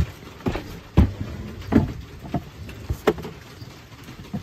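Knocks and thumps, about five in three seconds, as a cooler is moved and set back down onto its raised platform.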